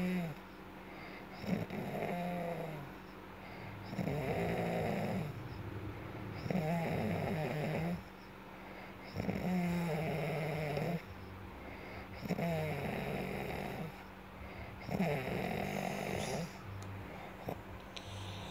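A person snoring in a steady rhythm, one long snore about every two and a half seconds.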